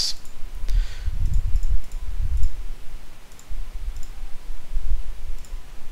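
A few scattered computer mouse clicks, over a low rumble.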